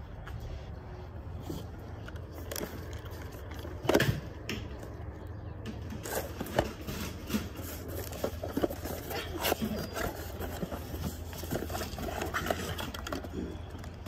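Handling noise: a cardboard faucet box and other items scraped and knocked about on a table, with a sharp knock about four seconds in, over a steady low hum.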